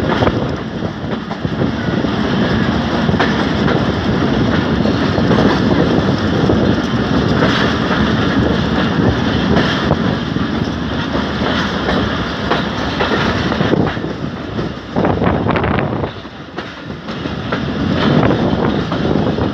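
Pakistan Railways express passenger coaches rolling on the track, heard from outside an open coach window, the wheels clattering over rail joints and points. The clatter dips briefly about three-quarters of the way through.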